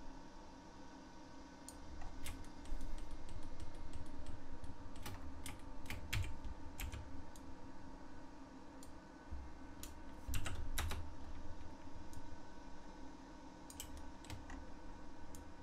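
Computer keyboard keystrokes: irregular clusters of sharp clicks as shortcut keys are pressed, with pauses between groups.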